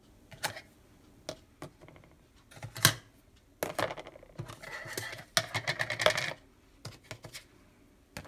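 Plastic food-storage containers and their lids clattering and clicking as they are handled and pressed shut. The clicks are sparse at first, then come in a dense run of clatter through the middle.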